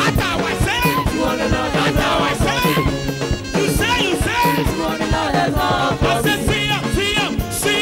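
Live gospel praise music: singers over a band with keyboard and saxophone, with a steady beat.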